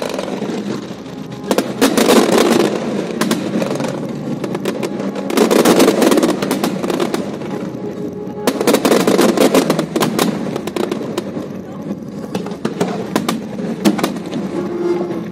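Aerial fireworks display: rapid bangs and crackling from shell bursts, with loud dense volleys about two, six and nine seconds in.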